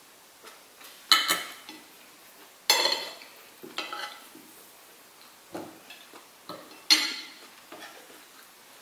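Metal forks and spoons clinking and scraping on ceramic dinner plates as food is cut and scooped. Three loud clinks come about a second in, near the three-second mark and near the end, with lighter taps between.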